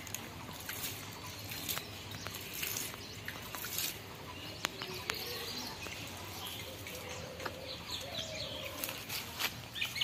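Birds chirping, with a quick run of repeated chirps near the end, over scattered taps and scrapes of a small hand tool working garden soil.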